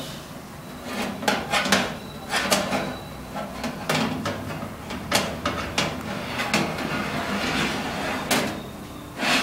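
A metal baking tray and wire rack clatter and scrape as they are slid in and out of the side grooves of a Prestige OTG oven. There are about a dozen irregular knocks, and the loudest comes near the end.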